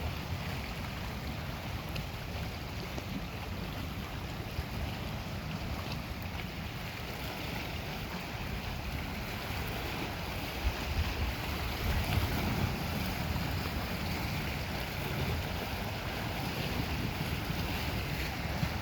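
Steady wind buffeting the microphone over lake waves washing on the shore, with a louder low rumble swelling a little past the middle.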